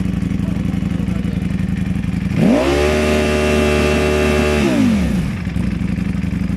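Ducati V4 motorcycle engine idling, then revved sharply about two seconds in and held at a steady high rpm for about two seconds before dropping back to idle.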